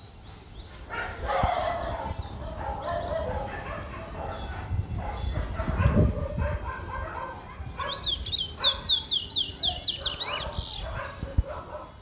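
A caged towa-towa seed finch sings a fast run of about a dozen high, down-slurred notes, starting about eight seconds in and lasting nearly three seconds. Before that, a dog barks and whines over a low rumble.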